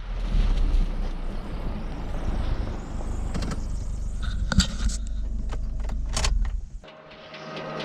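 A vehicle running with a steady low rumble, with a few sharp knocks and rattles, presumably while driving over to the irrigation reel. The rumble cuts out about seven seconds in, leaving a quieter steady hum.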